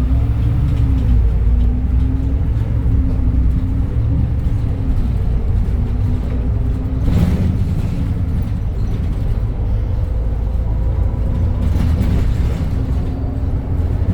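The 2021 Edison Motors Smart 110G city bus's CNG engine running under way, heard from inside the cabin: a heavy low rumble whose engine tone rises and falls several times as the bus pulls along. A brief knock cuts through about halfway.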